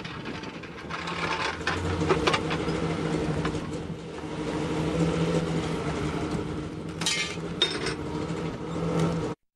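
A steady engine hum with scattered metallic clinks and knocks, the busiest clusters about two seconds and about seven seconds in.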